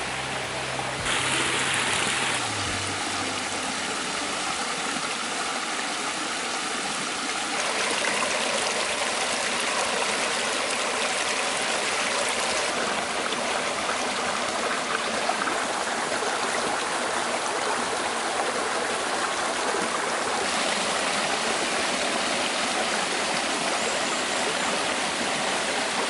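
Rocky mountain stream rushing and splashing over boulders in small cascades: a steady, even rush of water whose level shifts a few times.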